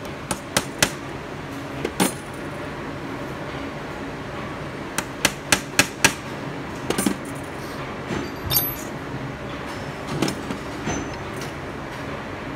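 Hammer striking a steel punch held on a small metal piece on a bench vise: sharp metallic taps, three quick ones and then a single one, a fast run of five about five seconds in, then fainter knocks and clinks toward the end.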